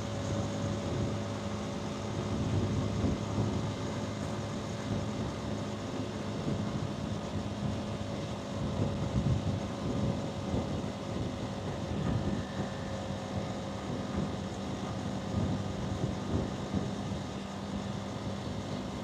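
Hansom Bike Benett 125cc motorcycle engine and exhaust running steadily while riding, with wind rush on the microphone.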